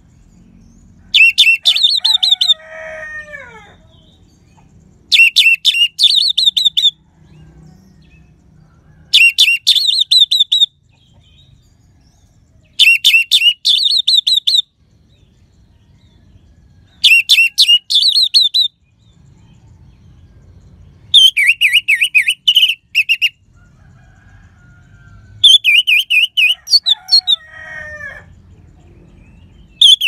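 Orange-headed thrush singing: short phrases of loud, rapid, high whistled notes, each lasting about a second and a half, repeated about every four seconds. A fainter call that falls in pitch follows the first and the last phrase.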